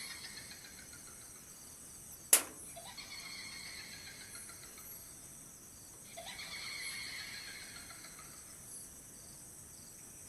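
A high, whinny-like pulsed call that slides down in pitch, heard twice, over a steady high chirring of night insects. A single sharp click about two seconds in is the loudest sound.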